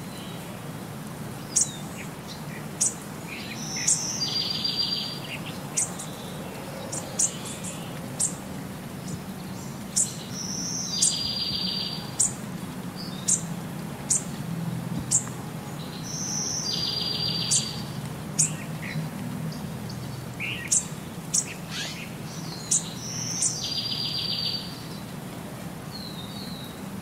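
Birds chirping: a short buzzy trill recurs about every six seconds, with sharp high chirps scattered in between.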